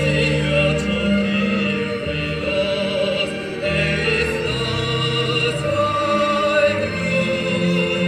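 Music with operatic singing over held orchestral or choral chords, the notes changing every second or so.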